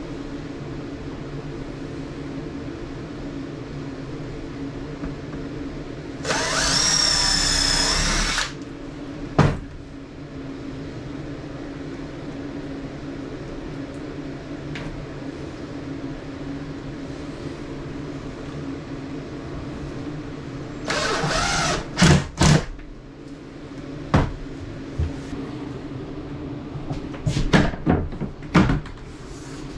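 Cordless drill running in two short spells, a two-second whine that rises slightly in pitch and a shorter one later, as screws are driven into a van's ceiling trim, followed each time by sharp clicks and knocks.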